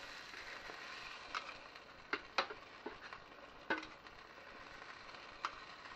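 Kitchen tongs clicking and tapping against a griddle tray as roasted tomato halves are picked up and moved. About six light, scattered clicks over a faint steady hiss.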